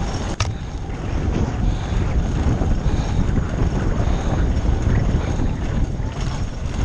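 Wind buffeting the camera microphone over the rattle and rumble of a Foes Hydro 2 downhill e-bike's tyres and frame on rough dirt and gravel at speed. There is a sharp click about half a second in.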